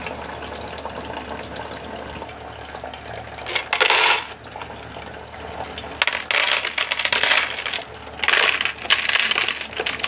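Handfuls of small pebbles dropped into a clear bowl and onto each other, clattering in three bouts (about a third of the way in, just past halfway, and near the end) over a steady low hiss.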